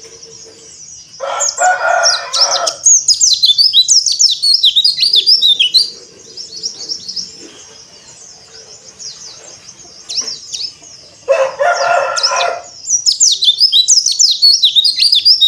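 White-eye (pleci) singing in two long bouts of fast, high twittering. A rooster crows twice in the background, about a second in and again about eleven seconds in.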